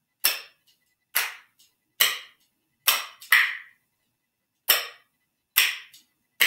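A pair of spoons played as a percussion instrument, clacked slowly in a pattern against the leg, hand and arm. Sharp single clacks come about once a second, with one quick pair near the middle and a short gap after it.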